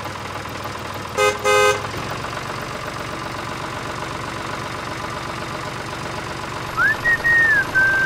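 Small tractor engine running steadily, with two short horn toots about a second in. A squeaky call that rises and then falls comes near the end.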